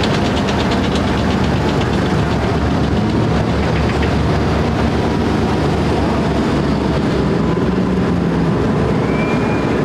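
Heavy military vehicles' diesel engines running steadily as they drive past, with a fast rattle near the start.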